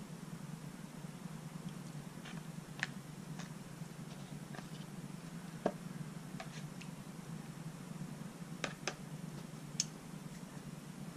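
Scattered light taps and clicks of disposable wooden chopsticks against the bowls while noodles and vegetables in broth are lifted from one bowl into another, over a steady low hum.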